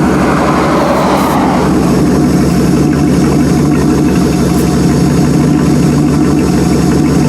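Jeep engine idling steadily.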